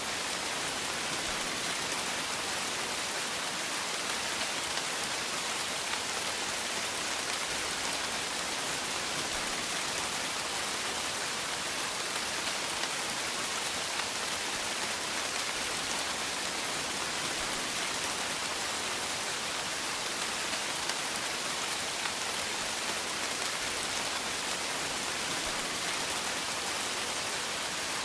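Light rain falling: a steady, even hiss with faint fine ticks of drops.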